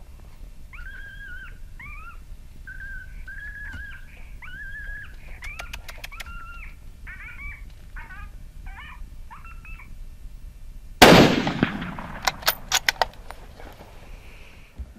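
A series of high, wavering black-backed jackal calls that shorten into quick yips. About eleven seconds in comes a single loud rifle shot from a .243, with a long trailing echo, followed by a few sharp clicks.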